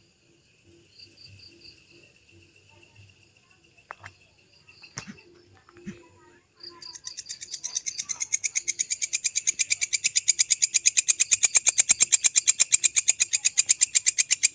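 Walang kecek katydid song: a fast, even train of dry, high chirping pulses. After a quiet stretch with faint chirps, the song starts about seven seconds in and builds to full loudness.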